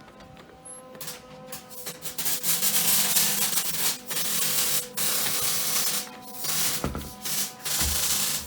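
MIG welder arc hissing as a bead is run on the ATV frame, in several runs with brief breaks about four seconds and seven seconds in.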